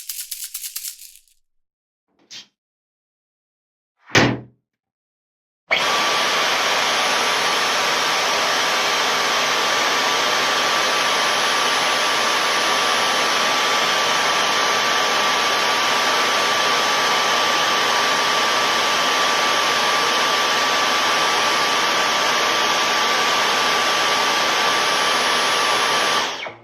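A small click and a single loud thump, then a Dyson vacuum cleaner switches on suddenly about six seconds in. It runs at a steady pitch with a high whine for about twenty seconds and dies away just before the end.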